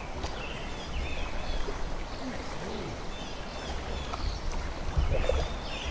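Small birds chirping repeatedly over the steady background of a stream, with uneven low rumbling of wind on the microphone.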